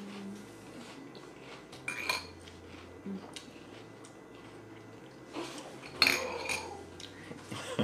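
Metal spoons clinking against a bowl: a few separate clinks, with the loudest about six seconds in.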